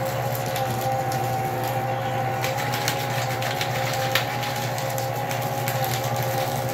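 Electric paper shredder's motor running with a steady hum, with paper crackling and rustling at the feed slot as a sheet is pawed and drawn into the cutters; a sharp click about four seconds in.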